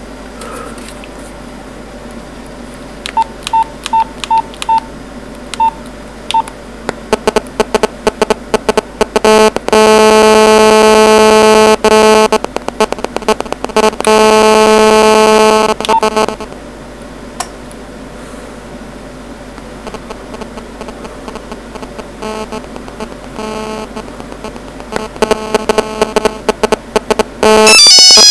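Nokia mobile phone placing a call: a few short key beeps, then rapid clicking and two loud stretches of steady buzzing, the typical GSM radio interference picked up by the audio while the phone connects. An electronic beeping melody, like a ringtone, starts near the end.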